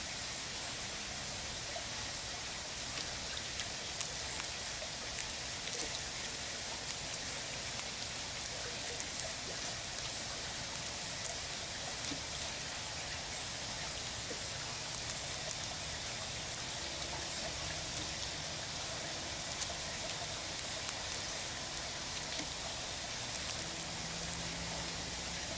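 Gray squirrel cracking and chewing sunflower seeds close by: irregular, sharp little clicks over a steady outdoor hiss.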